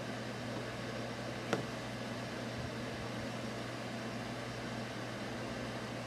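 Steady low hum and hiss of background noise, with one short sharp click about a second and a half in.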